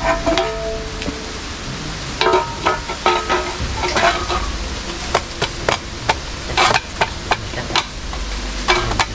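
Crinkling and rustling of a plastic carrier bag with scattered sharp clicks and knocks of footsteps and handling on rock and dry leaves.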